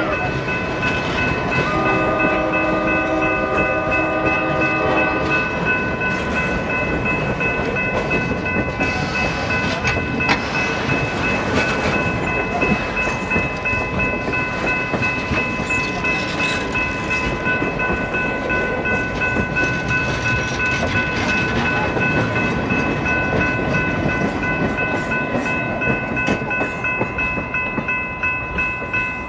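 Excursion train rolling past, with cars clattering over the rails. Its horn sounds for a few seconds about two seconds in. A steady high-pitched ringing tone runs over it the whole time.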